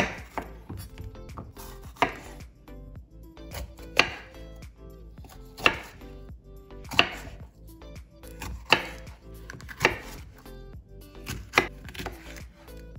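Chef's knife slicing bell peppers into strips on a wooden cutting board. About eight sharp knocks of the blade meet the board, roughly one every second and a half.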